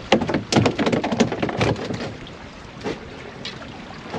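Handling noise on a kayak: a quick run of irregular knocks and rustles for nearly two seconds, then two single knocks, over the steady wash of water and wind.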